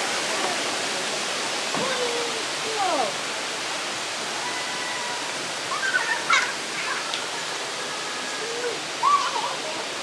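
Steady rushing of the Kuang Si Waterfall's cascading pools. Scattered short, distant voices and calls from people come through over the water noise.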